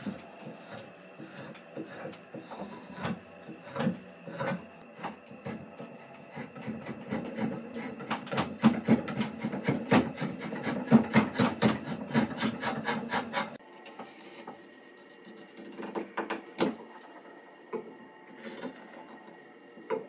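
Hand file rasping across a birch spoon clamped in a bench vise: scattered strokes at first, then a run of quick strokes, about three or four a second, that stops abruptly about thirteen seconds in. After that, a few sparser scrapes and clicks of a metal tool inside the spoon's bowl.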